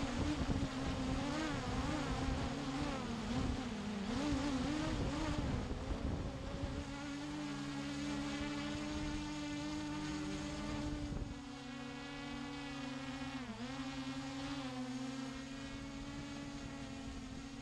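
Hubsan H501SS quadcopter's four brushless motors and propellers buzzing close to the onboard camera, with wind rumble in the first part. The pitch wavers up and down with the throttle at first, then holds steadier from about halfway, dipping once briefly as the drone comes down low.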